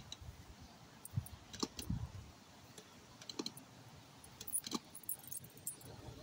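Light metallic jingling and clicking from a small dog's leash clip and collar as the dog moves about on the leash, coming in a few short bursts. There are a couple of soft low thumps about a second or two in.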